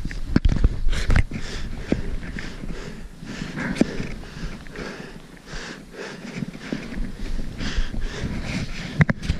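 A hiker breathing hard and audibly, about one breath every two seconds, close to the microphone. There are a few sharp knocks and crunches, the loudest about a second in and near the end, from steps in snow and trekking poles.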